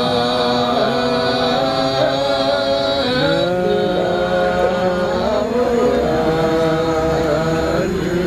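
Several voices chanting a slow melody of long held notes that slide between pitches, in the manner of Ethiopian Orthodox liturgical chant; lower voices come in about three seconds in.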